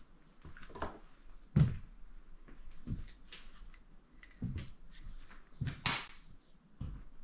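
Slow footsteps on a littered floor, a dull thud about once a second, with a sharper crunch underfoot near the end.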